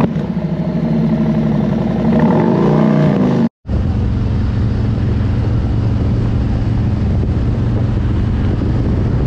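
Motorcycle engine revving, its pitch rising and falling about two to three seconds in. After a brief cut, a Harley-Davidson Road Glide Special's V-twin runs steadily at road speed with wind rush on the microphone.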